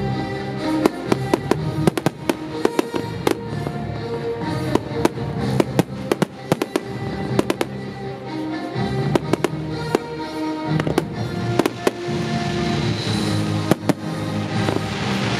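Aerial fireworks shells bursting in quick, uneven succession: dozens of sharp bangs and pops over loud music with long held notes. A steady hiss builds near the end.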